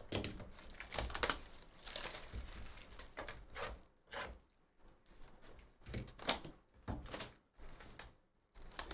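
A 2023 Bowman's Best hobby box of trading cards being opened by hand: cardboard tearing and packaging crinkling, busy for the first four seconds, then coming in short separate rustles.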